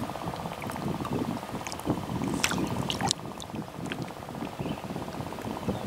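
Lake water sloshing and lapping around a person wading chest-deep, with a few sharp ticks of small splashes or drips.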